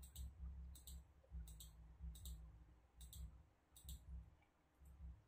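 Computer mouse button clicked over and over, each click a faint press-and-release double tick, about one or two a second, placing points along a curve in a drawing program. A low hum comes and goes underneath.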